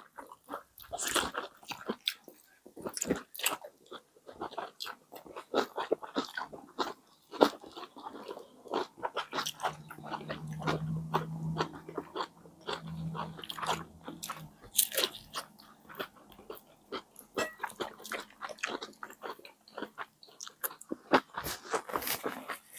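Close-miked mouth sounds of people eating brioche-bun sandwiches filled with ham, egg, cheese and salad: wet chewing, lip smacks and crisp bites in many short, irregular clicks. A low hum runs for about five seconds in the middle.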